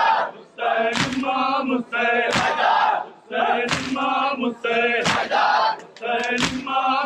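Crowd of Shia mourners chanting a matam chant in unison, with a loud collective chest-beating slap about every one and a half seconds, five times.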